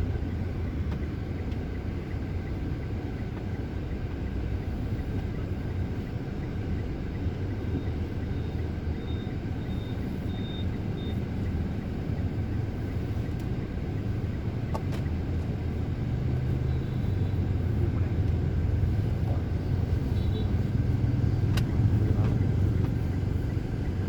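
Steady engine and road rumble of a moving car heard from inside the cabin, growing louder in the second half, with a couple of faint clicks.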